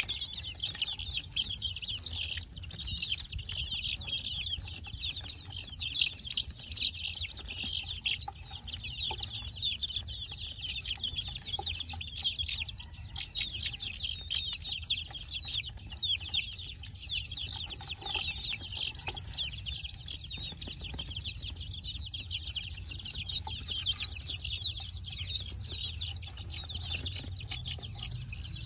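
A flock of young chicks peeping nonstop, many short high calls overlapping, with a low steady rumble underneath.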